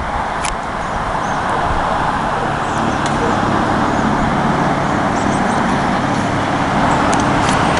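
Road traffic going by, a steady rush of car tyres and engines.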